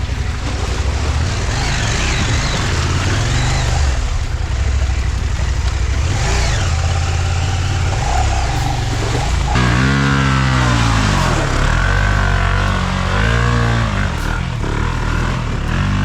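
Adventure motorcycle engines revving up and down on a trail, mixed with background music. From about ten seconds in, the engine pitch swells up and falls back several times.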